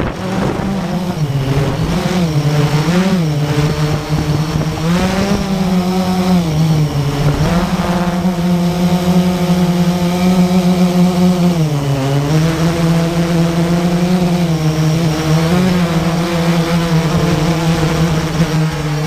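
Blade 350QX quadcopter's four brushless motors and propellers, heard up close from the onboard camera, running in flight with a steady hum whose pitch rises and dips repeatedly as the throttle changes.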